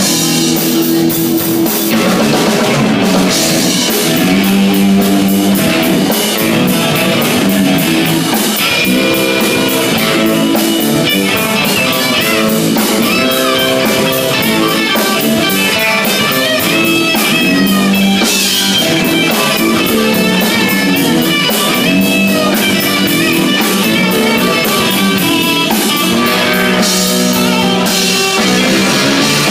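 Rock band playing an instrumental passage: electric guitar over a drum kit keeping a steady beat on the cymbals, with no singing.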